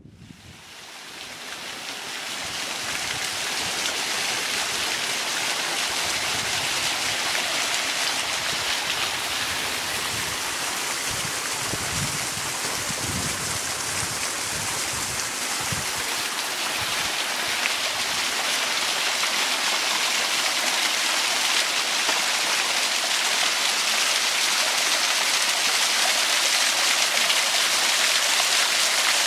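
Steady rushing and splashing of water from a small waterfall spilling down a rock face. It fades in over the first few seconds, then holds steady.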